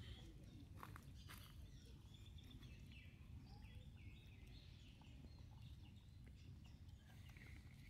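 Near silence: faint outdoor ambience with a low rumble, a few soft clicks about a second in, and faint high chirps in the middle.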